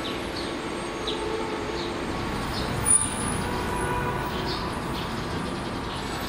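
Steady outdoor background rumble with repeated short, high bird chirps, and one brief sharp high squeak about three seconds in.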